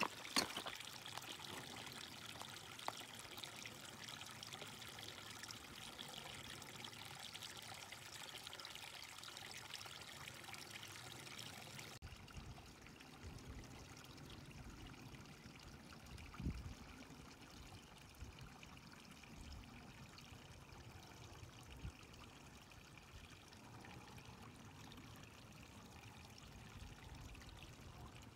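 Small snowmelt stream trickling faintly among snow-covered rocks, with a few sharp clicks at the very start. About twelve seconds in the sound cuts to a quieter, duller hush with a few soft low thumps.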